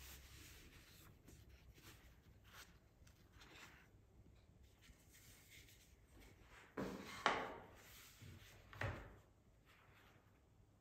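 Hands handling a white moulded-paper smartphone box: light rubbing and scraping of the paper, then a few louder knocks and scrapes about two-thirds through and again a second and a half later, as the lid and base are worked apart.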